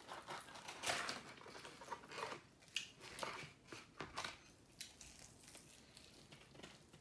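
Crispy skin and meat of a whole deep-fried chicken crackling and tearing as the wing is pulled off by hand, in faint, irregular crackles.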